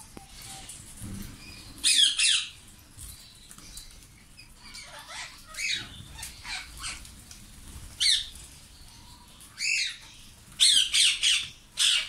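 Indian ringneck parakeets squawking: loud, shrill calls of a fraction of a second each, a pair about two seconds in, several scattered over the middle, and a quick run of calls near the end.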